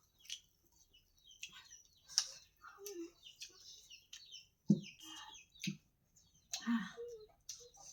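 Close-up eating sounds: irregular wet mouth smacks and chewing clicks, with a few short low hums or grunts in the second half.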